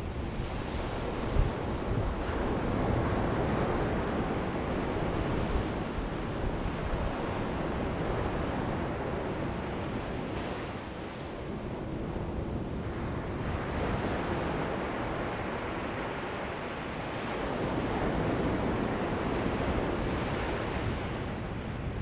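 Sea surf breaking and washing up a sand and pebble beach, a steady rushing wash that swells and eases as each wave comes in. Wind rumbles on the microphone underneath.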